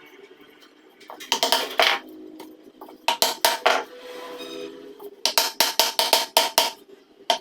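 Background music with a percussive beat, coming in short bursts of quick strikes over steady held notes.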